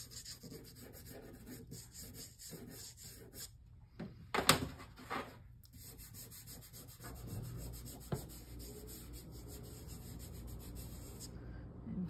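Soft pastel stick scratching across watercolour paper in quick short strokes as grasses are drawn, with one sharp knock about four and a half seconds in.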